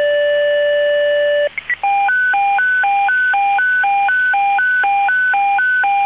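Fire dispatch alerting tones received over a radio scanner, paging a fire station to a call. One steady tone breaks off about a second and a half in, a couple of short blips follow, and then a hi-lo warble switches between a lower and a higher pitch about twice a second.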